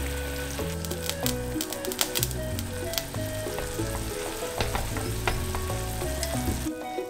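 Water boiling hard in a small pan around a block of instant ramen noodles, a steady bubbling hiss, with wooden chopsticks stirring the noodles and making scattered light clicks. Background music with a stepping bass line plays underneath.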